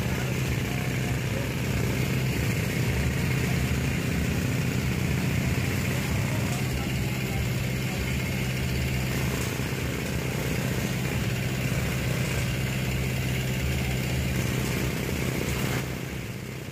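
A vehicle engine idling, a steady low hum that holds even and then drops away near the end.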